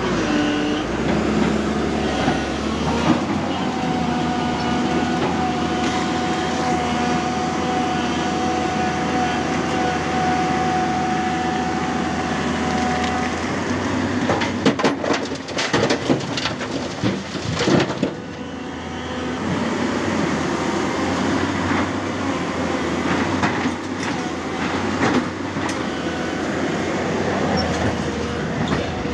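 Tata Hitachi 200 tracked excavator's diesel engine running steadily under load while it digs broken rock. A steady tone sits over the engine for about the first ten seconds, and a burst of knocks and clatter from the bucket striking rock comes about halfway through.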